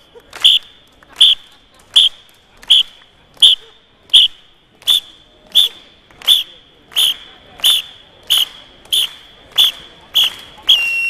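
A steady train of short high beeps, each with a sharp click, about one every 0.7 seconds, echoing in a large hall. Near the end a single high whistle tone is held for about a second.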